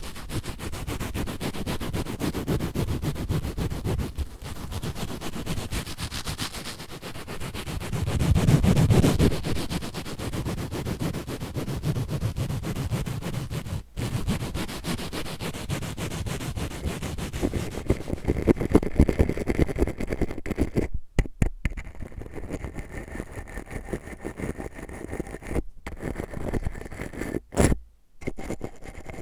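A sponge rubbed and scratched against the microphone, making a dense, rustling scrape with a deep rumble. About two-thirds of the way through it gives way to a brush scratching the microphone, a finer, lighter scratching broken by a few abrupt cuts.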